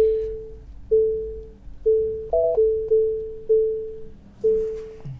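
Tesla Model 3 park-assist chimes as the car noses up to a curb: a single ringing tone repeated about once a second, coming quicker for a moment in the middle, with a higher two-note chime partway through. A faint steady hum runs underneath.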